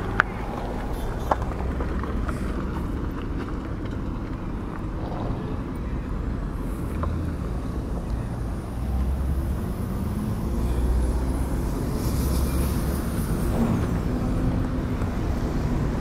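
Road traffic: vehicles passing along a dusty roadway, a steady rumble that grows a little louder in the second half.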